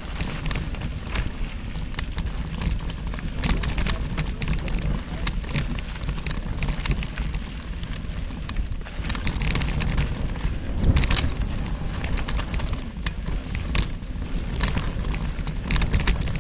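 Mountain bike rolling over dry dirt and gravel singletrack, heard from a handlebar-mounted camera: tyres crunching and crackling over loose stones, the bike and camera mount rattling with many sharp clicks, over a steady low rumble.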